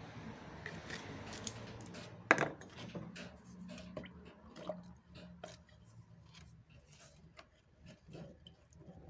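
A rod stirring a paint mixture in a metal tin can, clinking and scraping against the can's sides in a run of short irregular knocks. One louder knock comes about two seconds in.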